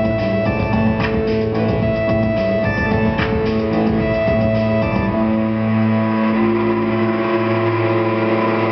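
Live rock band playing electric bass and drums; about five seconds in the drums stop and held notes ring on as the piece winds down.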